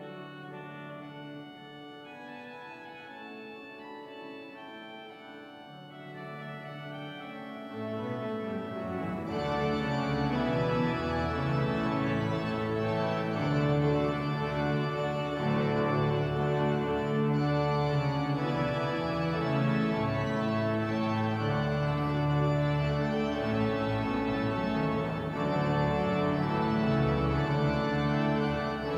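Organ playing held chords, soft at first, then swelling fuller and louder with added bass about eight seconds in.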